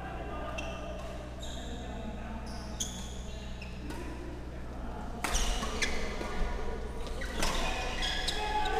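Badminton rally on a synthetic court: rackets hitting the shuttlecock with sharp cracks and players' shoes squeaking on the court mat, echoing in a large hall. The hits and squeaks come thicker and louder from about five seconds in.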